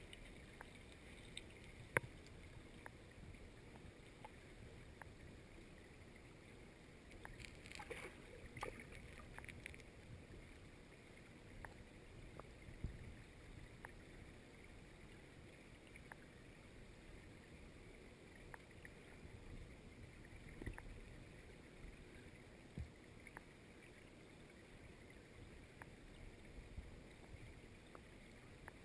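Faint, muffled underwater river noise heard through a submerged GoPro's waterproof housing, with scattered sharp clicks and ticks. The loudest click comes about two seconds in, and a cluster of them comes around eight seconds in.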